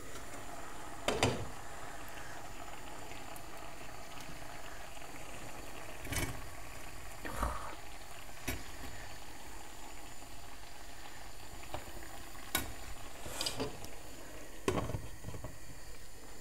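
Cauliflower florets being broken apart by hand: a handful of short crisp snaps and small knocks, scattered every second or few, over a steady background hiss.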